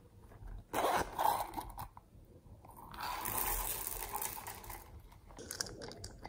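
Small silver tube beads poured from a plastic bag onto a tray of slime and beads: a crackling, rattling pour lasting a couple of seconds, starting about three seconds in. It follows brief clicks and rustles about a second in.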